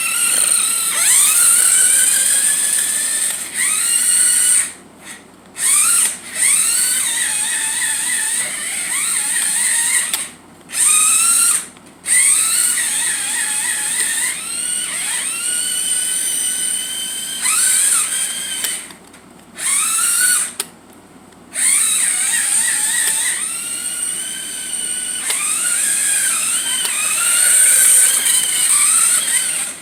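Toy remote-control Mario Kart car's small electric drive motor whining as it is driven in drift mode, the pitch rising and falling with the throttle and cutting out several times for a second or so between runs.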